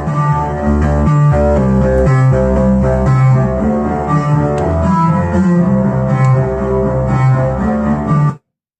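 Synthesizer music from Behringer MS-1 and Pro-1 analog synths, run through a Behringer Virtualizer Pro DSP2024P effects unit: a pulsing bass line under sustained pitched notes. It cuts off abruptly about half a second before the end.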